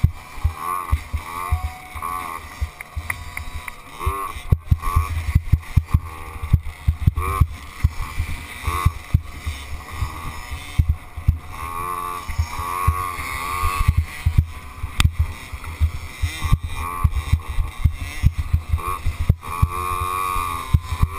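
Small youth dirt bike engine heard from the rider's helmet, its pitch rising and falling again and again as the throttle opens and closes. Wind rumbles on the microphone, and frequent short thuds come from bumps in the track.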